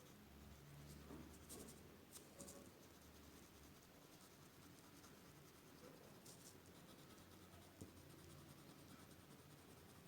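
Faint scratching of a coloured pencil colouring in on paper.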